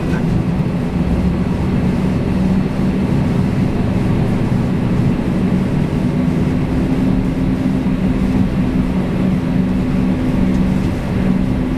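Dash 8-400's Pratt & Whitney PW150A turboprop and six-bladed propeller running steadily on the ground after start: a loud, even, low drone with a steady hum, heard from inside the cabin.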